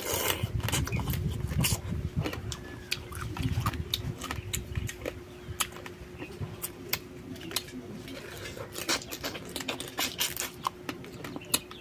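Close-miked eating of raw crab and snail: wet chewing with many sharp crunches and cracks of shell, thickest in the first few seconds and then coming as scattered cracks. A faint steady hum runs underneath.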